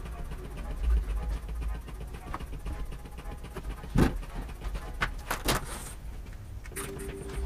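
A long metal ruler set down on a wooden workbench with one sharp clack about four seconds in, followed by two shorter knocks as it is handled again, over a low steady rumble.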